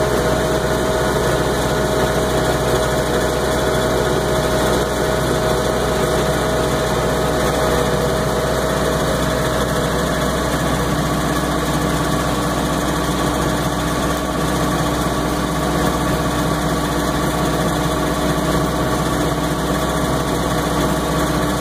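Tractor engine running steadily under load while cutting hay, heard from inside the cab.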